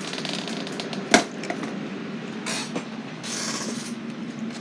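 Handling noise from objects being moved about: one sharp knock about a second in, then two short bursts of rustling, over a steady low hum.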